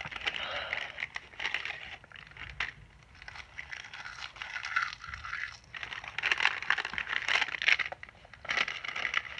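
Crinkly plastic seaweed-snack bag rustling and crackling as it is handled, heaviest near the end. Short crunches of a crisp roasted seaweed sheet being bitten and chewed.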